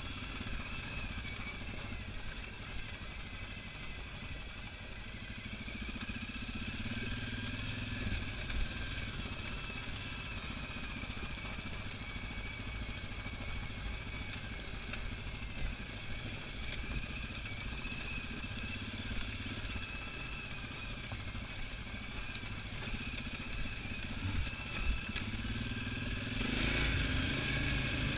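Single-cylinder ATV engine running as the quad rides down a rough, rocky trail, with occasional knocks and rattles from the bumps. The engine gets louder near the end.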